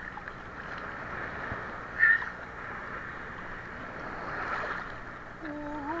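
Sea water sloshing and lapping around a swimmer and the camera held at the water's surface. A short, high-pitched squeak about two seconds in is the loudest sound, and a hummed voice starts near the end.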